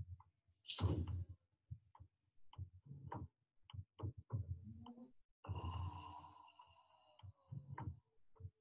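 A woman breathing audibly at rest: a sharp breath about a second in, then a longer sighing exhale a little past halfway, with faint scattered clicks between.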